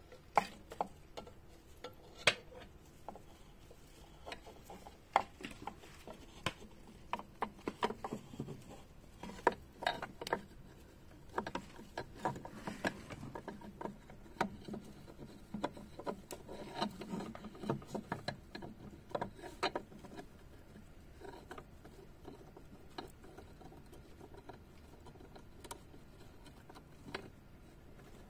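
A dwarf hamster gnawing on wood and scrabbling in wood shavings: many small, irregular sharp clicks and crunches, busiest in the middle and thinning out over the last third.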